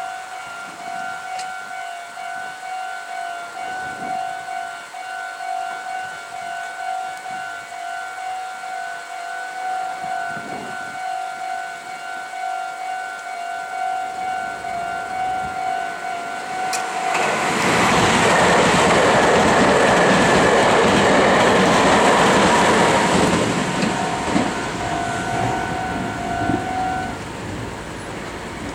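Japanese level-crossing warning bell ringing in a steady pulsing two-tone rhythm. About two-thirds of the way in, a Meitetsu 1700 series electric limited-express train rushes through the crossing; its wheels clatter on the rails, loud for about six seconds, then die away. The bell stops shortly before the end.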